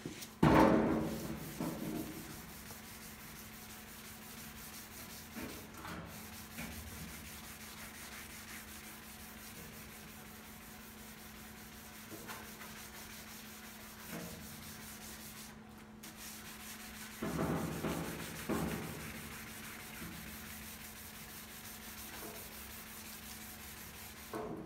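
Steel drawer faces being hand sanded with fine wet sandpaper: a steady rubbing over a low hum. A loud knock comes about half a second in, and a few more ringing knocks come around two-thirds of the way through.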